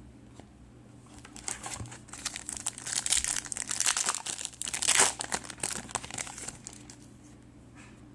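Crinkly trading card pack wrapper being handled, a dense run of crackles lasting about five seconds and loudest near the end of it.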